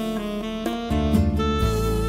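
Instrumental music: a held melody note over a steady bass line.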